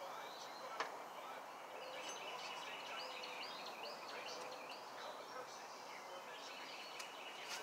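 A bird singing a run of short, repeated high chirps over faint outdoor background noise, with a single sharp click about a second in.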